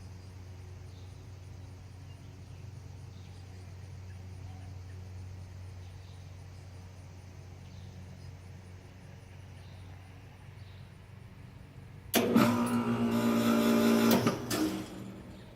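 A running machine with a steady low hum. Near the end a much louder pitched mechanical sound comes in suddenly, lasts about two and a half seconds and then falls away.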